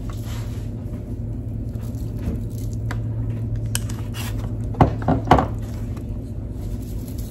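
A spoon stirring and scraping a thick mayonnaise-and-egg mixture in a disposable aluminium foil pan, while salt and pepper are shaken over it from glass shakers; soft scrapes and ticks with two sharper knocks about five seconds in, over a steady low hum.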